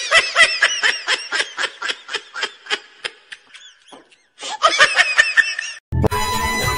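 A person laughing in quick giggling pulses, a long run that trails off, then after a short pause a second shorter burst of laughter. Music cuts back in near the end.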